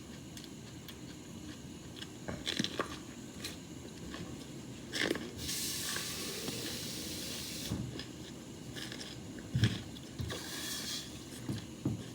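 Cherry tomatoes and snacking peppers being heated, giving scattered small pops and crackles as their skins burst, with a steady hiss of escaping steam for about two seconds starting five seconds in and a shorter hiss near the end. The loudest pop comes about nine and a half seconds in.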